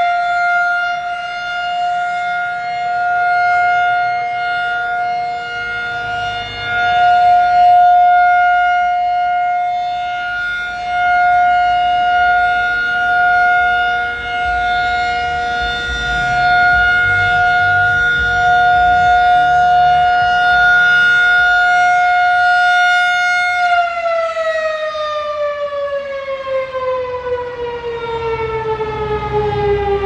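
Federal Signal 2001-SRN single-tone chopper siren sounding a steady Alert tone. Its loudness swells and fades as the rotating head sweeps around. Near the end the tone winds down, falling steadily in pitch as the test alert ends.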